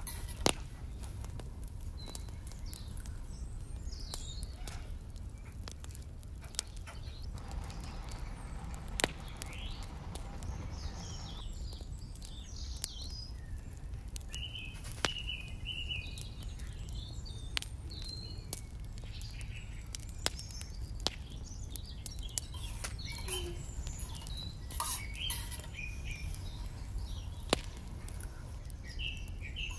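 Birds chirping in the background now and then, with about eight sharp, scattered clicks and small taps of miniature cookware over a low steady rumble.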